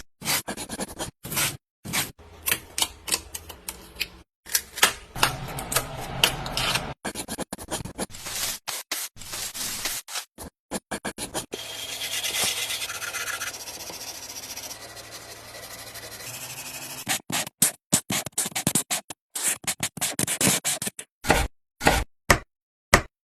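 Quick-cut series of scraping, rubbing and tapping noises from hands-on miniature model building, each snippet stopping abruptly; a longer, steadier scraping stretch sits in the middle.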